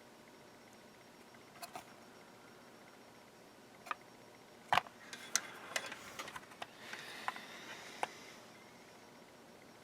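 Scattered small clicks and taps of multimeter probe tips being set on and scraped against a circuit board while checking continuity, with a faint scratch about seven seconds in.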